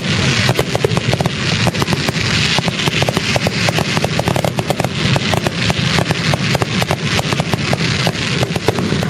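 Fireworks display: a dense, unbroken barrage of sharp bangs and crackling reports, many a second, over a continuous low rumble.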